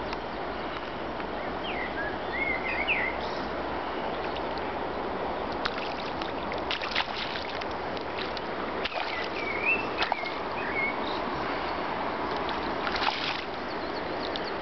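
Steady rush of river water. A small bird chirps twice, about two seconds in and again about ten seconds in, and a few sharp knocks or splashes come in the middle and near the end.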